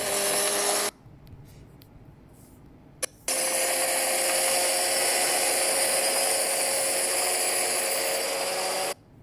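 A steady rushing, whirring noise with a faint steady whine in it, the kind of sound the title calls a wind noise issue. It cuts off abruptly about a second in, gives a short burst around three seconds, then starts again and runs until shortly before the end.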